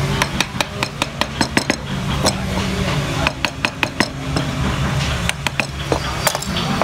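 Wooden mallet striking the handle of a wood-carving gouge, driving it into the wood: sharp knocks, about four to six a second, in runs with short pauses between.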